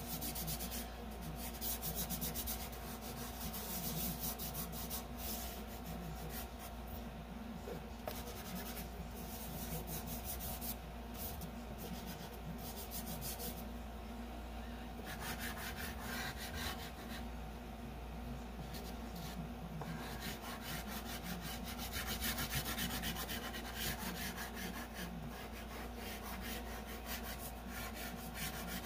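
Chalk pastel being drawn onto paper and blended in by hand: soft, continuous rubbing strokes of pastel and fingers over the paper's surface.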